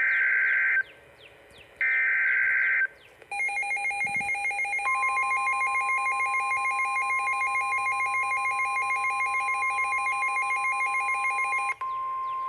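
NOAA Weather Radio alert on a Midland WR-300: two short buzzy bursts of the SAME digital header, then the radio's pulsing electronic alarm sounding over the steady 1050 Hz warning alert tone, signalling a severe thunderstorm warning. Near the end the pulsing alarm cuts off and the plain tone carries on.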